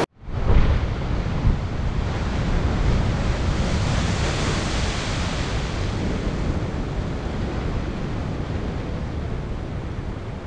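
Ocean surf: waves breaking and washing in a steady rush with a deep rumble. It starts abruptly after a moment's silence, surges about half a second in, and eases off slightly toward the end.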